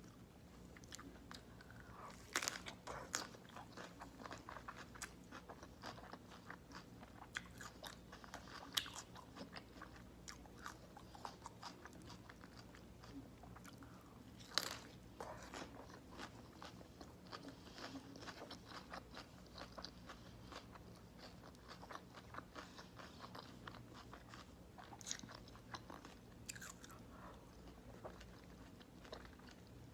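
Close-miked eating: steady wet chewing and crackling, broken by a few sharper crunchy bites into a cabbage-leaf-wrapped beef burger. The chewing is faint, with the bites standing out about six times.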